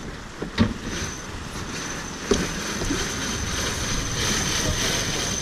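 Wind and water rushing past a J/111 racing yacht under sail, a steady noisy rush with a couple of knocks in the first half. A thin, steady high-pitched whine sits over it from about a second in.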